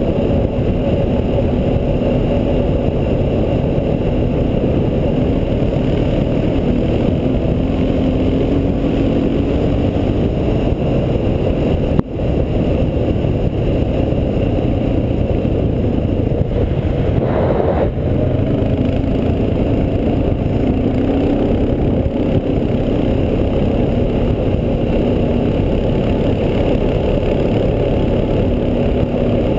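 Honda Foreman 500 ATV's single-cylinder engine running steadily while riding along a gravel road, its pitch wavering slightly with the throttle under a constant rush of wind and road noise. There is a single sharp knock about 12 seconds in and a brief hiss a few seconds later.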